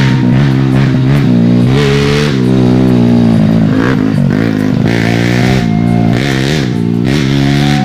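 Honda Grand single-cylinder four-stroke motorcycle engine, bored to 125cc and fitted in a semi-trail frame, revving in rising and falling swells as the bike rides past close by on a plantation trail.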